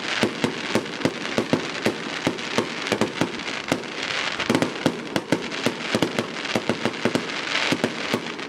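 Fireworks going off in a dense, irregular barrage of sharp bangs, several a second, over a steady hiss.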